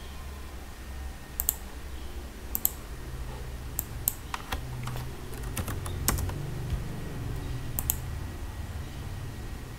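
Computer keyboard typing and clicking: a dozen or so irregular sharp key clicks, starting about a second and a half in and stopping near the end, over a low steady hum.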